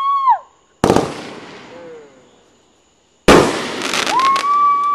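Consumer fireworks cake firing. A steady whistle ends in a falling glide, a sharp bang comes just under a second in and fades out, and after a short gap another loud burst with crackle leads into a second held whistle.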